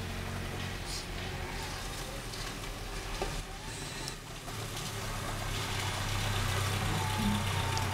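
Renault Kangoo van's engine running under load as it labours along a flooded mud track, its wheels slipping. The low engine hum grows louder from about five seconds in.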